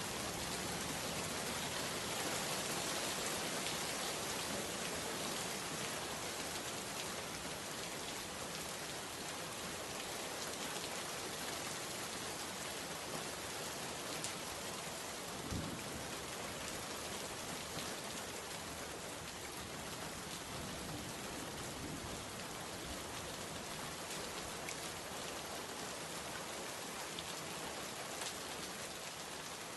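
Steady heavy rain falling and pattering on surfaces, an even hiss of many drops. A brief low thump sounds about halfway through.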